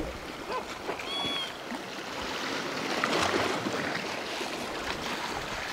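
Sea waves washing against a rocky shore: a steady wash that swells a little midway. A brief, faint high chirp comes about a second in.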